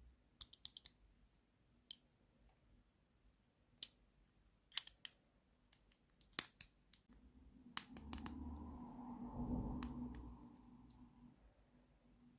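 Small plastic toy kitchen pieces clicking and tapping against each other as they are handled, a dozen or so sharp separate clicks. From about seven seconds in, a softer rubbing or rustling swells for a few seconds and fades.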